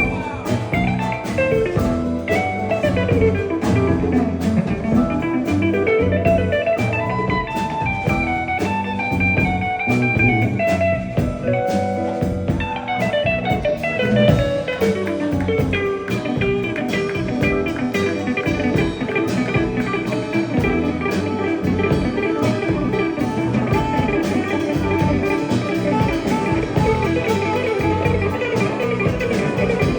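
Bluesy jam-session music: a guitar playing sliding melodic lines over a drum kit beat.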